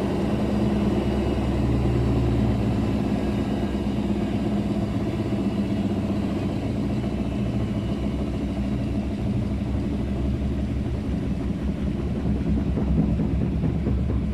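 Daewoo DWD-FT1013 washing machine in its 800 rpm spin cycle with an unbalanced load: a loud, steady low rumble with a hum.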